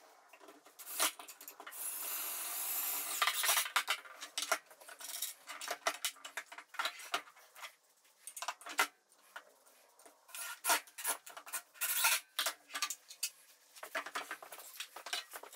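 Cordless drill running in a sustained stretch about two seconds in, driving screws into 2x4s through metal corner brackets. Many quick knocks and clatters of lumber, brackets and tools being handled follow.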